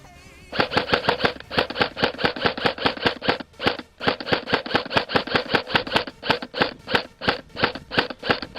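Airsoft gun firing rapid strings of shots, about six to eight cracks a second, starting about half a second in and broken by a couple of brief pauses.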